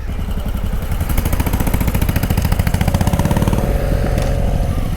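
Suzuki V-Strom 800DE's parallel-twin engine running at low revs, its exhaust pulses getting louder and choppier about a second in as the bike moves off slowly.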